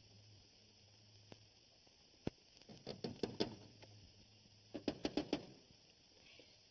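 A single sharp knock, then two short flurries of rapid knocks and clatter, over the steady hiss of an old film soundtrack.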